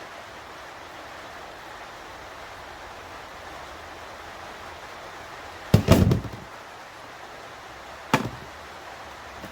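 Metal parts of a seatbelt pretensioner being handled and knocked while it is opened up: a short clatter of knocks about six seconds in and a single sharp knock about two seconds later, over a steady hiss of rain.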